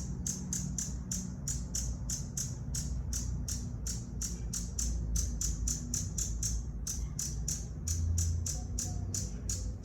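Hummingbird giving a steady series of short, high-pitched chip calls, about four a second, over a low rumble.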